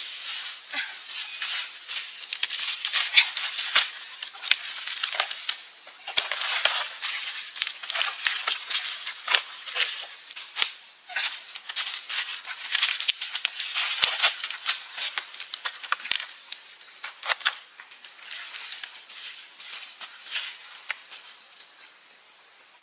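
Dry branches, twigs and leaves being handled, rustling with many sharp crackles and snaps. It thins out near the end.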